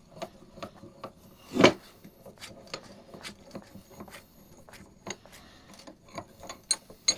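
Scattered light clicks, knocks and rubbing of metal bench vise parts being handled, with one louder thump about a second and a half in.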